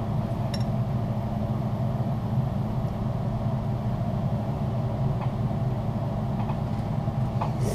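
A steady low hum with a few faint short clicks over it, like a spoon or fork against a bowl as someone eats.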